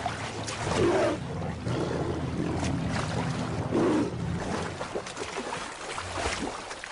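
Splashing, churning river water, with louder surges about a second in and again about four seconds in.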